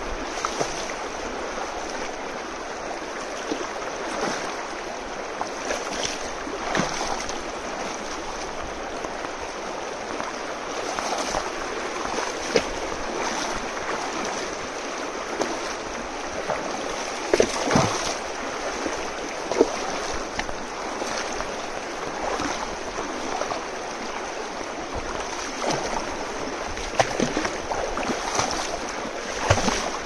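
River water rushing and splashing, with a steady rush broken by frequent irregular sloshes and splashes.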